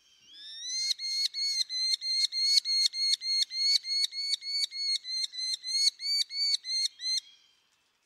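Merlin calling: a rapid, even series of sharp, high notes, about four a second, swelling in over the first second and stopping about seven seconds in.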